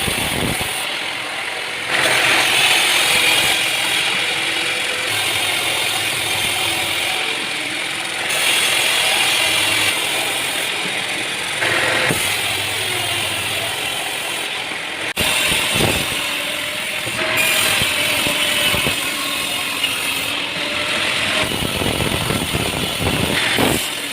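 Sawmill machinery running: a dense mechanical clatter and hiss that changes abruptly every few seconds, with a few sharp knocks.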